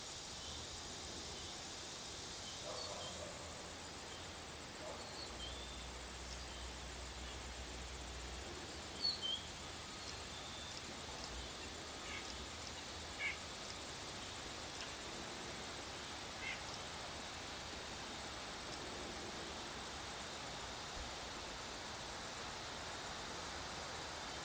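Backyard ambience: a steady high insect trill with a few short, high bird chirps on top, the loudest about nine and thirteen seconds in.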